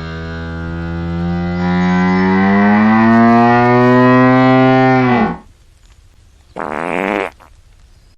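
Long, drawn-out fart sound effect: one loud pitched blast of about six seconds that rises slowly in pitch and drops away at its end, followed a second later by a short second blast.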